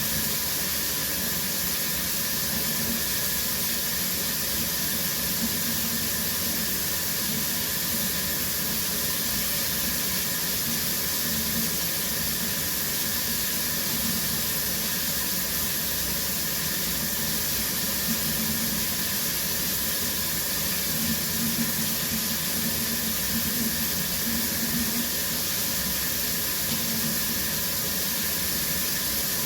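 Shower running steadily: an even hiss of water spraying and splashing.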